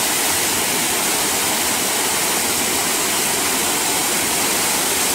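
A small waterfall pouring over rock: a steady rush of falling, splashing water, heard close to the falls.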